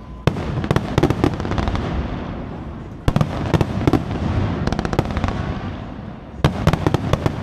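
Fireworks display: three volleys of aerial shells go off, a little after the start, about three seconds in and near the end. Each volley opens with a sharp bang, runs into a quick string of pops and crackle, then fades into a low rumble.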